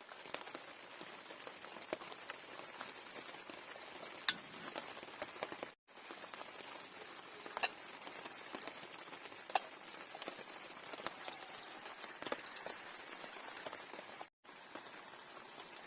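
Rain falling in a steady patter, with scattered louder single drops ticking. The sound cuts out briefly twice.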